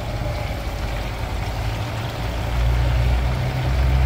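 Chicken pieces deep-frying in a large wok of hot oil, the oil sizzling with an even hiss, over a steady low rumble.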